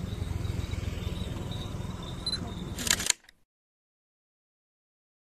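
Pocket camera's shutter clicking, a quick double click about three seconds in, over a steady outdoor background hum. The sound then cuts off abruptly to silence.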